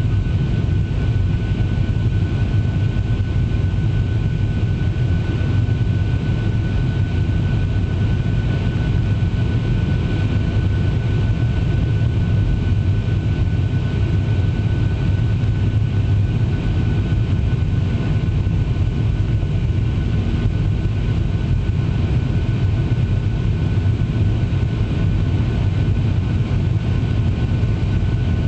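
Boeing 737-700's CFM56-7B jet engines heard from inside the cabin while climbing after takeoff: a steady deep drone with a thin, unchanging whine above it.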